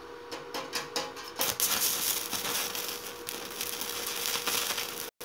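Electric arc welding: a few sharp ticks as the arc is struck, then a steady crackling sizzle, likely tacking a steel leg onto the galvanized steel body of the water-heater stove.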